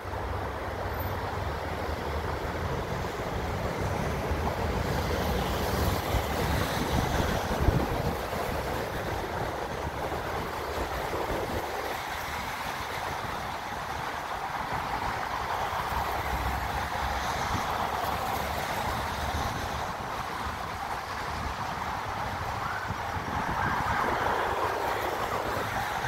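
Traffic passing on snowy city streets: a steady rushing that swells as vehicles go by, with wind rumbling on the microphone. A short sharp knock about eight seconds in.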